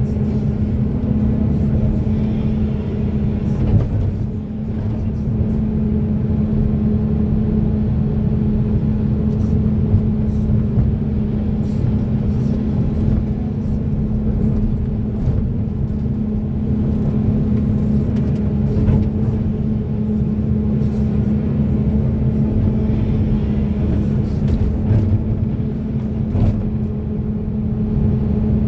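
Excavator's diesel engine running steadily, a constant deep drone that holds an even pitch throughout.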